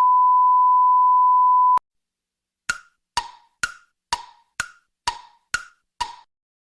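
A steady, pure high beep held for about two seconds stops sharply. After a short silence come eight crisp, evenly spaced wood-block-like ticks, about two a second.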